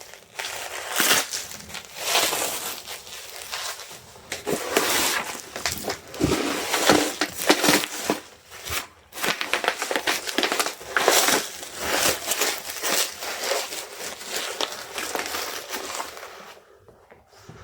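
Packing material crumpling and crinkling as it is handled, in uneven bursts of crackle that die down about a second before the end.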